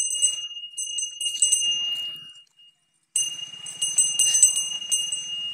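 Bells hung on a walking elephant jingling and ringing: a steady ring with a jangle of quick strikes. The sound cuts out completely for a moment about two and a half seconds in, then resumes.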